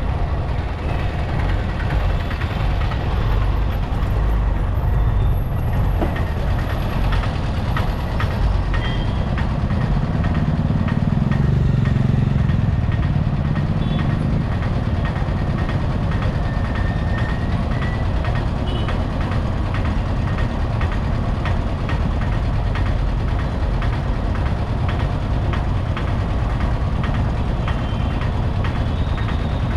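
Busy city road traffic heard from a moving motorbike: a steady mix of engines and road noise, with a heavier vehicle's low engine growing louder between about ten and fourteen seconds in.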